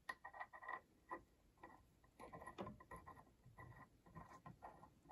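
Faint, irregular clicks and scrapes of the stud components being handled and fitted onto the chuck of an xTool RA2 Pro rotary, some with a faint squeak.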